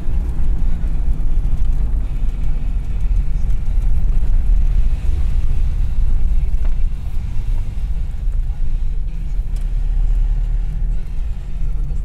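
Steady low rumble of a car driving, heard from inside the cabin.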